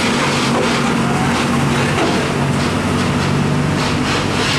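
Diesel tractor unit pulling a flatbed semi-trailer loaded with steel plates, driving past with a steady engine note and tyre noise, moving away near the end.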